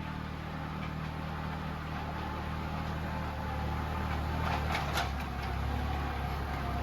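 Farm machinery engine running steadily at an even speed, with a couple of faint clicks about five seconds in.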